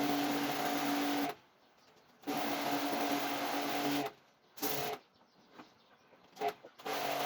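Electric motor of a cleaning machine used in air-conditioner servicing, running with a steady hum and hiss, switched off and on several times: it cuts out suddenly a little over a second in, restarts, stops again around four seconds with a couple of brief bursts, then runs again near the end.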